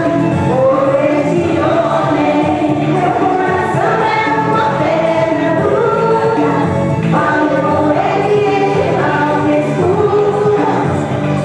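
A woman singing a melody with instrumental accompaniment.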